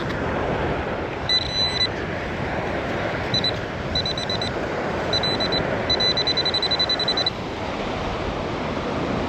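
Handheld metal-detecting pinpointer beeping over steady surf and wind noise: a held beep about a second in, scattered short beeps, then a fast run of about ten beeps a second that stops suddenly a little past the middle. The quickening beeps signal the probe is right on a metal target.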